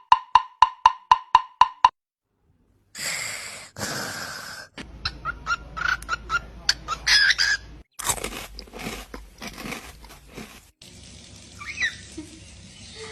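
A rapid, evenly spaced series of short beeps, about four a second, stops about two seconds in. After a short silence come a couple of rustling noises, then a pet parrot's short chirps and clicks.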